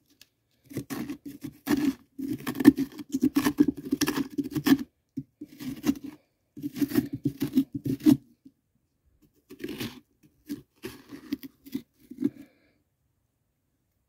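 Pumpkin pulp and seeds being scraped and torn out of the inside of a hollowed pumpkin: quick rough scraping strokes in runs, thinning out over the last few seconds.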